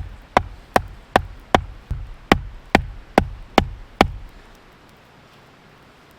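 A run of about ten sharp, evenly spaced knocks, two to three a second, each with a short ringing tail, stopping about four seconds in.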